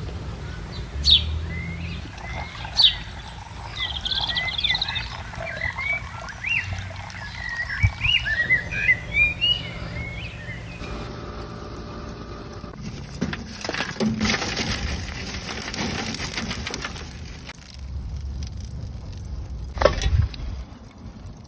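Small birds chirping and twittering outdoors, many quick rising and falling chirps, for the first ten seconds or so. Then rustling and scraping for a few seconds, and a single loud knock near the end.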